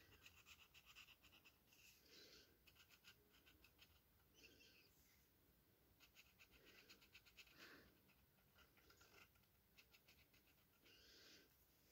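Faint scratching of a felt-tip marker colouring in on paper, in runs of quick back-and-forth strokes with short pauses.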